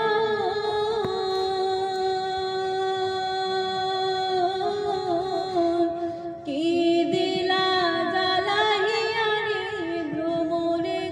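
A woman singing solo with no accompaniment, in long held notes ornamented with slides and quavers; she breaks for a breath about six and a half seconds in.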